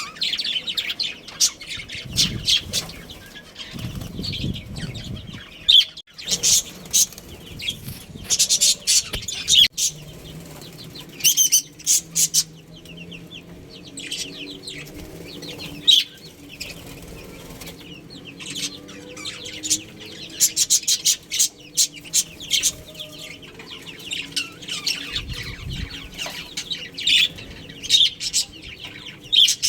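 Budgerigars chirping and chattering in quick, busy calls, with low fluttering sounds now and then, typical of birds moving about in a cage.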